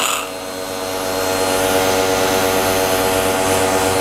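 Motoyama 135-bar high-pressure washer running with the trigger held. The pump motor hums steadily under load while the water jet hisses out of the lance, swelling a little over the first second.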